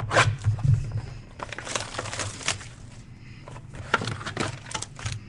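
Trading-card boxes and packs being handled and opened: tearing and crinkling of packaging with sharp clicks and knocks, busiest a couple of seconds in.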